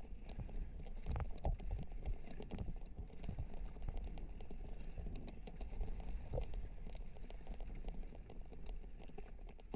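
Mountain bike rolling down a rocky dirt and gravel trail, heard from a helmet-mounted camera: tyres crunching over loose stones with a constant clatter of small knocks and rattles, over a low wind rumble on the microphone. The rattle is typical of the rider's Fox Proframe RS full-face helmet, which rattles heavily on rough ground.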